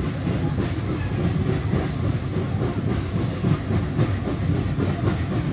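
Steady running rumble of a heritage railway carriage rolling slowly along the track, heard from inside the coach.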